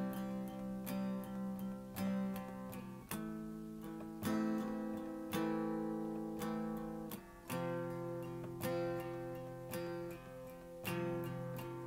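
Guitar strumming chords, about one strum a second, each chord ringing on until the next, with the chord changing every strum or two.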